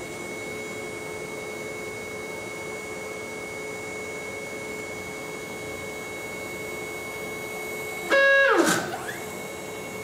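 CNC router's Y-axis stepper motor, fitted with a penny damper, driving the gantry at 66 inches per minute with a steady whine. About eight seconds in, at a change of direction, it briefly stalls with a loud harsh burst and a pitch falling away, then picks up again: the motor is running at the edge of its top speed.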